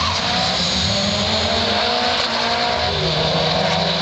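Two drag cars at full throttle down the strip: the turbocharged 4G63 of a Mitsubishi Eclipse GSX and an Evo, engine pitch climbing, dropping at a gear change about three seconds in and climbing again.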